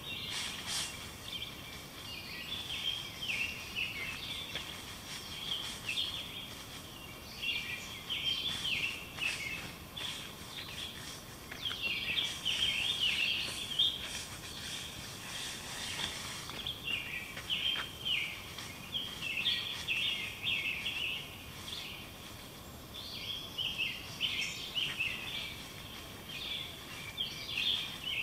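Woodland songbirds singing, a dense run of quick chirping phrases that keeps coming and going, over a low outdoor hiss, with a few faint clicks.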